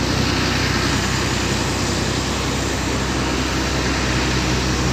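Heavy diesel engine, from the crane or the truck, running steadily at a constant speed: a low drone under a wide, even hiss.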